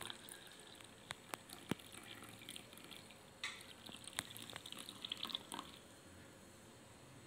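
A hot drink poured from a stainless-steel tumbler into a coconut-husk cup: a short, faint splashing trickle around the middle, after a few light clicks.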